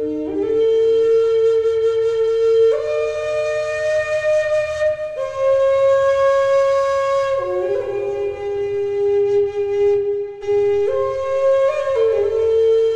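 Native American flute of western cedar playing a slow solo melody of long, steady held notes, stepping to a new pitch every two or three seconds, with a brief pause for breath about ten seconds in.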